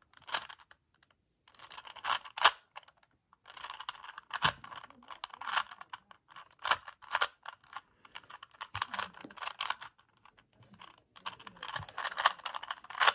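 Plastic Rubik's Cube clicking and clacking as its layers are turned in quick bursts of moves, with brief pauses between bursts.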